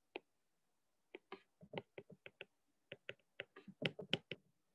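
Stylus tapping and scratching on a tablet screen during handwriting: a faint, irregular run of short, sharp clicks, one just after the start and then many in quick succession from about a second in.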